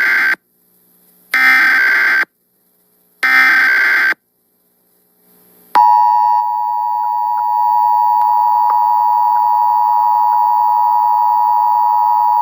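Emergency Alert System tones blaring from a TV: the end of the first raspy digital header burst and two more about two seconds apart, then, about six seconds in, the steady two-tone attention signal begins and holds. This is the standard alert sequence that opens an emergency broadcast, here a nationwide test.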